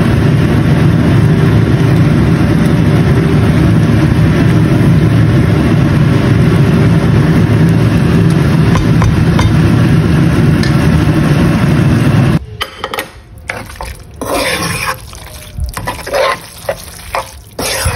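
Loud steady mechanical hum, such as a kitchen fan running, that cuts off suddenly about twelve seconds in. After that, a utensil scrapes and clinks against the pan several times as saucy noodles are stirred and tossed.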